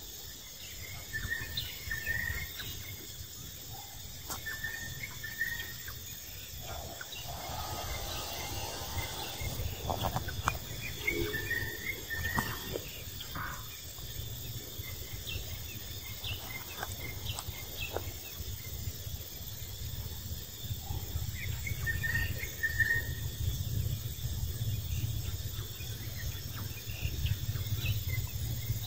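Steady drone of insects in the grass, with a few short high chirps here and there and a low rumble underneath.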